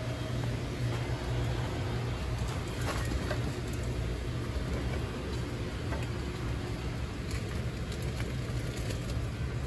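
Steady low machine hum with faint, scattered clicks over it.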